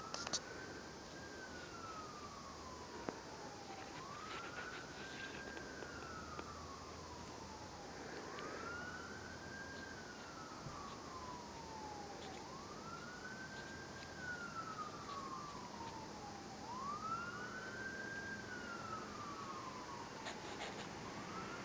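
A siren wailing: its pitch climbs quickly and then sinks slowly, over and over about every four seconds. There are a few faint clicks as well.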